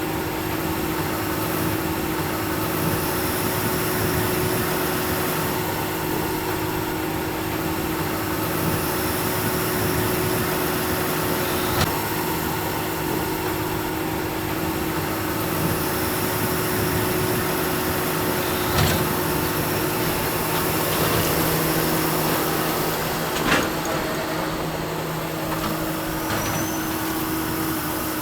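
A tractor and a Vermeer 604S Premium round baler running steadily while baling alfalfa, a constant engine and machinery drone with fixed tones. Three short sharp clicks from the machinery are spread through it.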